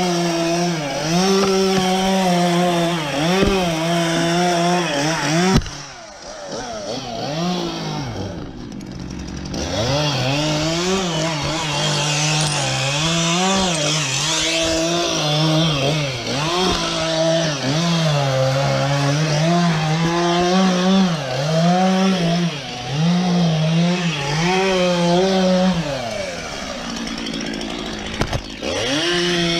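Top-handle chainsaw running at high revs and cutting through a conifer trunk, its engine note rising and falling again and again as the throttle is worked. It drops back twice, about six seconds in and again near the end, before revving up again.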